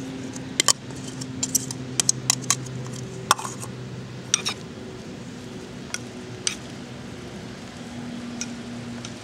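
Glass jar and metal spoon clinking against a ceramic bowl as chopped cilantro is tipped in and stirred: a quick run of sharp clinks in the first few seconds, then a few scattered ones.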